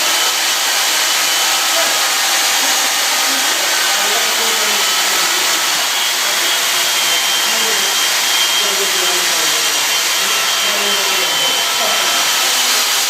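Steady, loud machine whoosh with a faint high whine, unchanging throughout.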